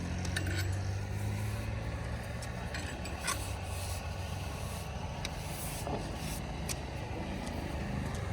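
Heavy diesel engine of an earthmoving machine running steadily, with scattered short scrapes and clicks of metal working against soil.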